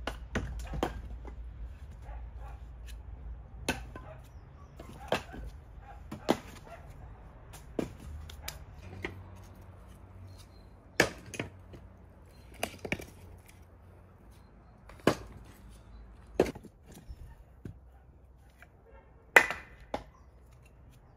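Split firewood logs being thrown one at a time onto a woodpile, each landing with a sharp wooden knock against the other logs, a dozen or so knocks at irregular intervals of a second or two, the loudest near the end.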